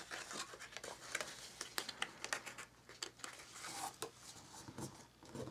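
Faint paper rustling with scattered light taps and clicks: a folded cardstock tube being slid onto a coin envelope and pressed down into place.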